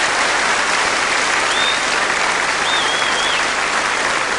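Large studio audience applauding steadily, with two brief high wavering whistles rising above the clapping about midway.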